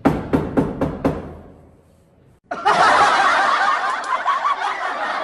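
About seven rapid knocks on a door in the first second. Then, a little over two seconds later, a loud burst of snickering laughter that starts and cuts off abruptly.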